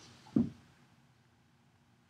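Two dogs play-wrestling on a hardwood floor: one short low thump about half a second in.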